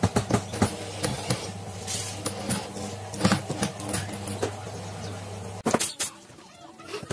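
Cordless drill-driver working at screws in the corner of a laminated drawer box: short clicks and knocks over a steady low hum. The hum cuts off suddenly about five and a half seconds in, followed by a couple of sharp knocks.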